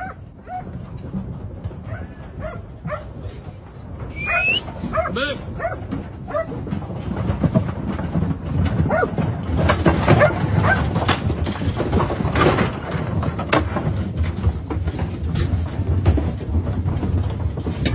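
Sheep jostling and clattering on the metal deck of a livestock truck while a sheepdog works through the packed flock, with a few short dog barks in the first seconds. The knocking and scuffling of hooves and bodies thickens from about seven seconds in.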